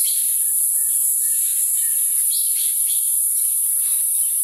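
Cicadas droning in a steady, high-pitched chorus, with a couple of short falling chirps from a bird a little past halfway.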